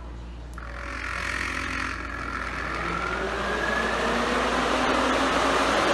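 Twin electric radiator cooling fans switch on about half a second in and spin up. The rush of air and a whine rise steadily in pitch and loudness as the variable speed controller soft-starts them at reduced power to limit the current draw.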